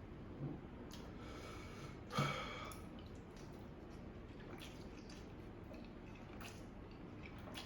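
Faint breathing, sniffing and small wet mouth noises from a man eating extremely spicy noodles, with one louder short voiced sound about two seconds in.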